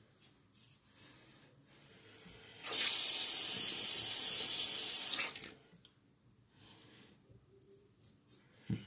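A bathroom sink tap runs steadily for about two and a half seconds, starting about three seconds in. Before it come faint short strokes of a slant safety razor on lathered stubble, and a short knock falls near the end.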